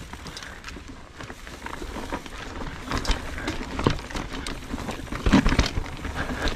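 Mountain bike rolling over rocky trail, the frame and drivetrain rattling and clattering, with several heavier knocks of the tyres hitting rock, the loudest about five seconds in.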